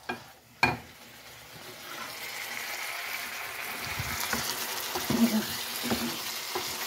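Shrimp and vegetables sizzling and simmering in a pan of liquid while a wooden spoon stirs them, with a few soft spoon thuds against the pan. A single sharp knock comes about half a second in, and the sizzle builds over the next second or so and then holds steady.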